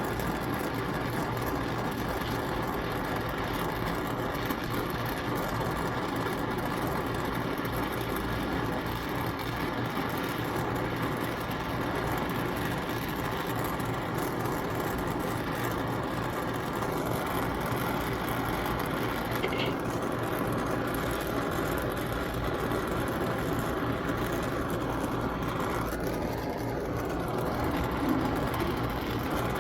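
Oxyacetylene torch flame burning with a steady hiss, held at light heat on an aluminum coil joint to bring it up to the melting point of a flux-core brazing rod.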